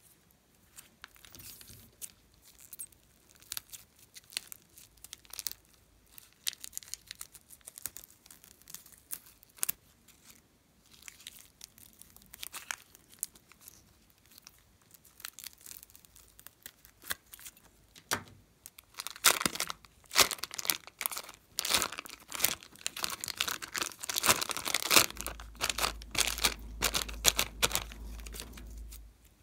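A plastic piping bag of soft clay crinkling and crackling as it is handled, snipped open with scissors and squeezed. The crinkling turns dense and loudest in the last third.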